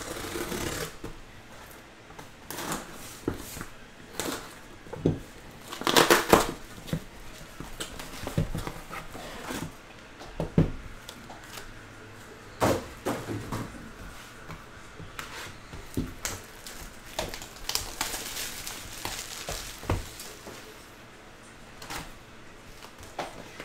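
Trading-card boxes being unpacked: a box cutter slitting packing tape on a cardboard shipping box, then cardboard scraping and knocking as the boxes are handled, in irregular bursts. Near the end, plastic shrink wrap crinkles as it is torn off a sealed hobby box.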